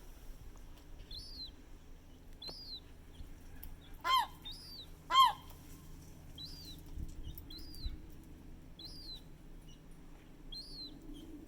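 Gull chick peeping: a thin, high, rising-then-falling cheep repeated about once a second. Twice, about four and five seconds in, a much louder, lower gull call breaks in.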